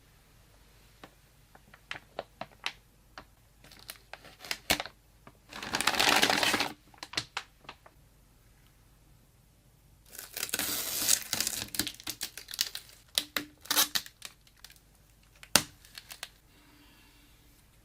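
Hands handling computer parts and packaging: scattered clicks and taps, with two bursts of crinkling, one about six seconds in and a longer one from about ten to twelve seconds.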